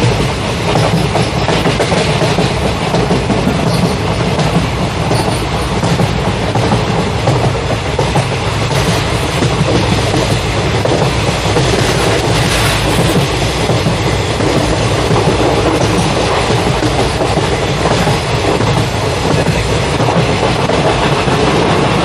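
A train running along the track: a steady, continuous rumble and rattle of its wheels on the rails.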